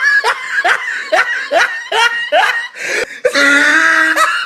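A person laughing in a quick run of short "ha"s, about three a second, breaking into one longer drawn-out laugh near the end.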